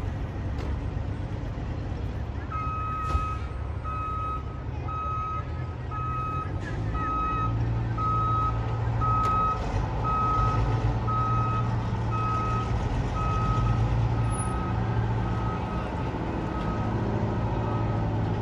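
A heavy vehicle's reversing alarm beeps steadily, a little more than once a second, starting a few seconds in and growing fainter toward the end. Underneath, a truck engine runs and grows louder partway through.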